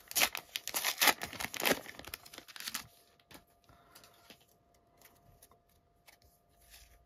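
A trading-card packet wrapper being torn open and crinkled for nearly three seconds, then a few faint taps and slides as the cards are taken out and handled.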